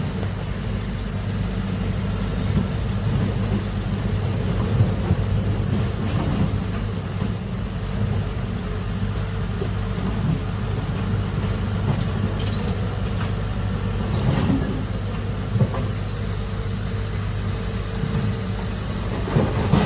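Large excavator's diesel engine running steadily, with a few short metallic knocks.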